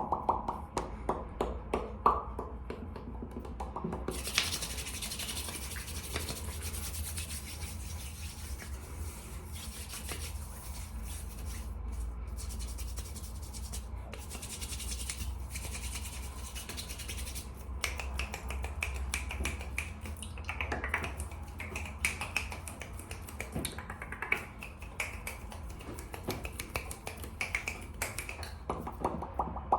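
Fast, aggressive ASMR hand sounds close to the microphone: quick snaps and clicks, then from about four seconds in a long stretch of rapid hand rubbing, then quick clicks and snaps again past the middle.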